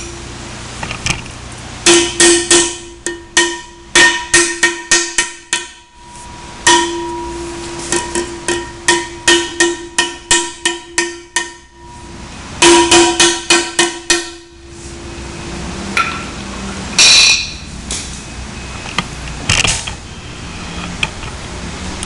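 Ball-peen hammer tapping a stainless steel banding buckle clamped on a post: three runs of quick metallic blows, roughly three a second, with a ringing tone after them. This is typical of hammering the buckle's ears down to lock the strap. A few separate louder knocks and a scrape follow later.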